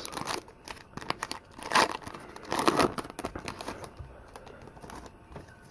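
Foil Pokémon TCG booster pack wrapper being torn open and crinkled by hand, a few short rustling bursts in the first three seconds, then quieter handling.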